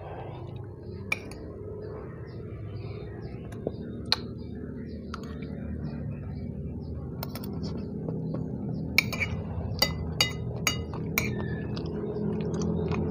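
Utensil clinking against a bowl or plate during eating: scattered single clinks, then a quick run of about six clinks near the end.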